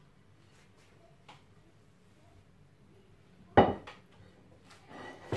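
Crockery handled over an earthenware tagine. It is quiet at first; about three and a half seconds in comes one sharp clatter of a dish knocking with a short ring, followed by a few lighter clicks and handling noises.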